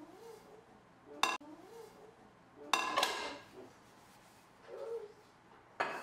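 Clean dishes clinking and knocking together as pans and ceramic bowls are put away: a sharp ringing clink about a second in, a louder clatter about three seconds in, and another clink near the end.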